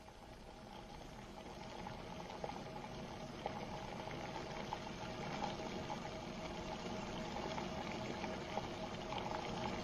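Water boiling, a faint bubbling with scattered small pops that grows slowly louder.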